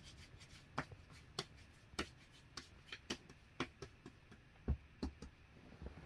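Soft pats and taps of hands shaping balls of bread dough and setting them down on a floured cloth, a quiet click or thud about every half second.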